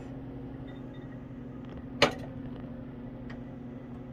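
A glass beaker of water set down into a ceramic bowl with a single sharp clink about halfway through, then a fainter click, over a steady low hum.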